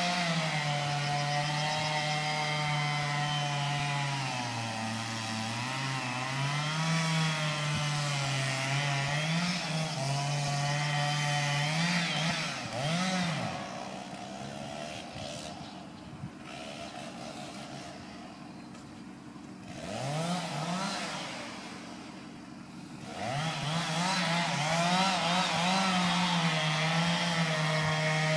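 Two-stroke chainsaw running at high revs, its pitch sagging now and then as if under load in the cut. In the middle it runs quieter, revving up and down, then returns to steady full throttle a few seconds before the end.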